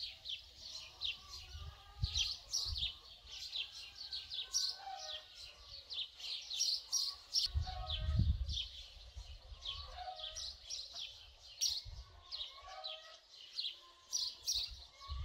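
Small birds chirping busily, with many short high chirps following one another and some lower calls among them. A brief low rumble comes about halfway through.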